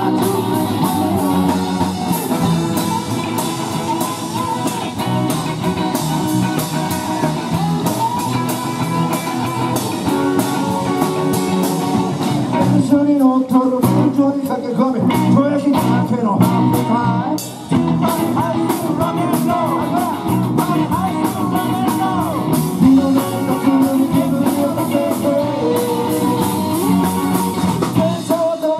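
A rock and roll band playing live with electric guitars, bass and drums, loud and continuous, with a momentary break about seventeen seconds in.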